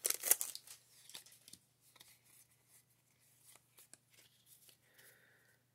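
Pokémon booster pack's foil wrapper crinkling briefly as the cards are pulled out, then faint rustles and ticks of the trading cards being handled.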